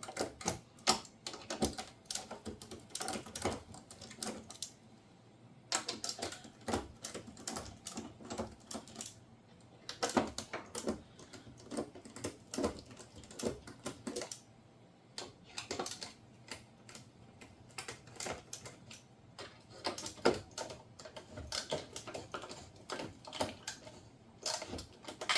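Ratcheting screwdriver with a T15 Torx bit clicking in quick runs, with short pauses, as the screws holding the dishwasher's control panel are backed out.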